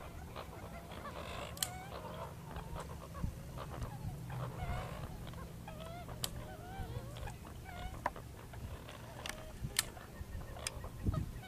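Birds calling over and over in short, wavering chirps and warbles. A few sharp clicks and a low steady hum run underneath.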